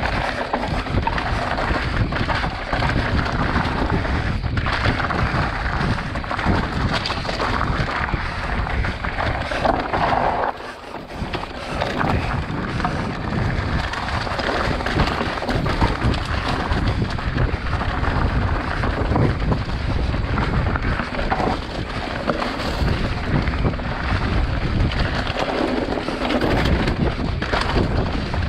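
Mountain bike descending a loose dirt trail: knobby tyres crunching over soil, stones and dry leaves, with the bike rattling over bumps and wind buffeting the microphone. The noise eases briefly about ten seconds in.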